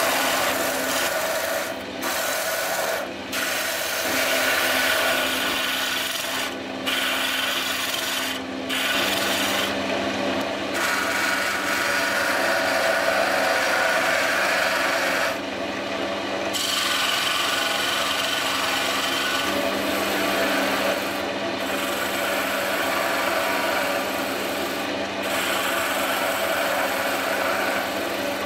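Wood lathe running with a steady hum while a turning tool cuts a spinning pale-wood spindle, first a gouge and later a skew chisel. The tool makes a continuous rough scraping hiss on the wood, broken by several short gaps where it lifts off the work.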